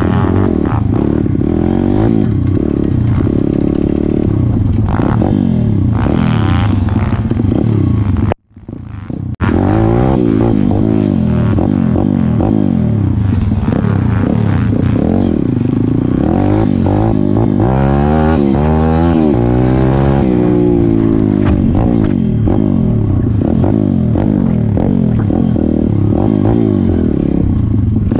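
Pit bike's small single-cylinder four-stroke engine running under riding load, its pitch rising and falling with throttle and gear changes, with the biggest swings about two-thirds of the way in. The sound cuts out for about a second a third of the way in.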